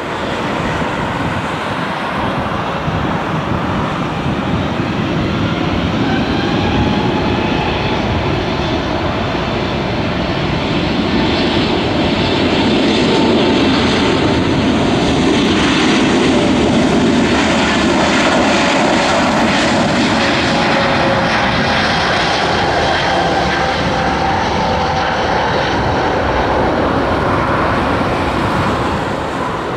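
Airbus A321-211's twin CFM56 jet engines running as the airliner taxis slowly: a steady jet rumble with a faint whine that drifts a little in pitch.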